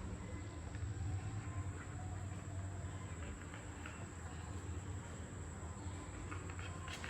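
Steady background noise: a low hum under a constant thin high-pitched tone, with a few faint ticks near the end.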